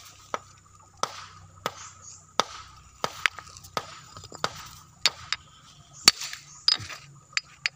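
Hammer striking stone: a dozen or so sharp knocks at an uneven pace of roughly one or two a second.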